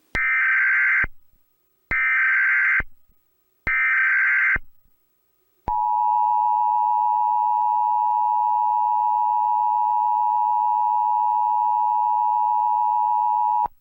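Emergency Alert System tones: three short bursts of the SAME digital header, each under a second long, followed by the two-tone EAS attention signal, a steady dual tone held for about eight seconds before cutting off. Together they mark the start of an emergency alert broadcast.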